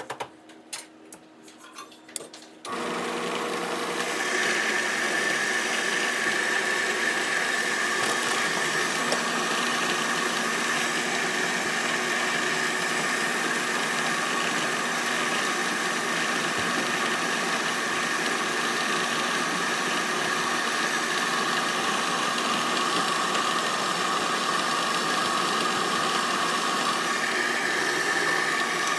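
Household rice polishing machine starting up about three seconds in and running steadily, a motor hum with a steady high whine, as it mills brown rice; it cuts off at the very end. A few light clicks and knocks come before it starts.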